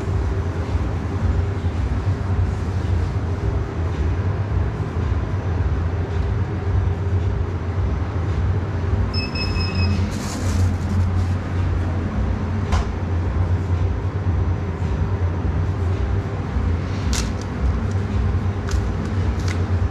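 Steady low machine hum. A short electronic beep sounds about nine seconds in, and a few light clicks follow.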